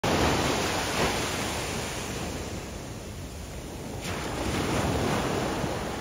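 Ocean surf washing onto a beach: a steady wash of noise that eases off around the middle and swells again about four seconds in.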